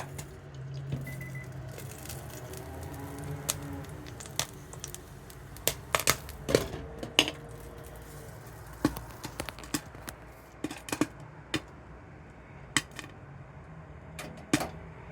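Popcorn kernels popping as they heat: scattered, irregular sharp pops, thickest around the middle, over a steady low hum.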